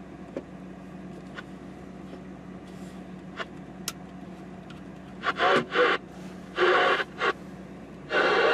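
CB radio audio through an external speaker: a low steady hum with a few faint clicks, short bursts of noisy radio sound between about five and seven seconds in, then steady loud static hiss starting near the end.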